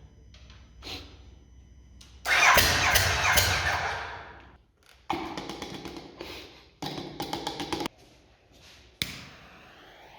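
Ducati SuperSport's L-twin engine being cranked over by its electric starter in three bursts, the last with a quick, even pulsing, without catching. This fits a bike that won't start. A sharp click comes about nine seconds in.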